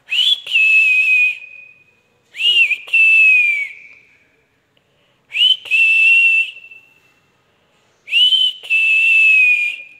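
Alexandrine parakeet whistling: four high whistles, each a quick upward flick and then a held note of about a second that sags slightly at its end.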